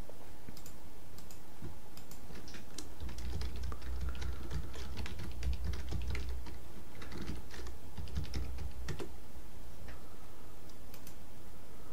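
Typing on a computer keyboard: irregular runs of keystroke clicks, mostly over by about nine seconds in.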